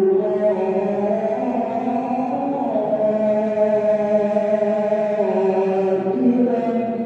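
A male qari reciting the Quran in a long, melismatic chanted phrase. The voice holds sustained notes and steps between pitches in one unbroken line.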